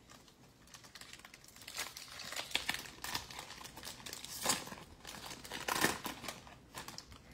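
Foil wrapper of a 2021 Panini Chronicles football card pack being torn open and crinkled by hand. The crackling comes in irregular spells starting about a second in.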